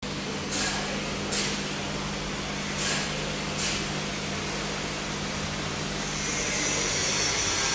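Steady machine hum with four short bursts of hissing, then a continuous hiss from about six seconds in.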